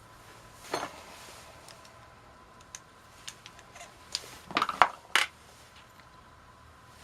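Metal tools and small carburetor parts clinking and clattering while a carburetor bank is taken apart: a clatter about a second in, a few light ticks, then a quick run of louder clinks past the middle.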